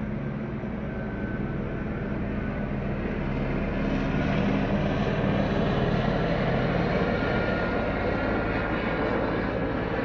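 Police helicopter flying overhead, its engine and rotor drone steady and low, growing louder over the first half as it comes closer.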